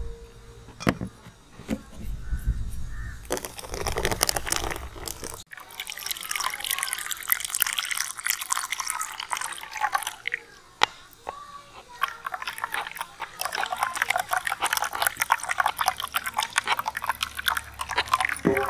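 Blended orange juice trickling and splashing through a plastic mesh sieve into an aluminium pot, with a spoon scraping and stirring the pulp against the mesh in many small ticks.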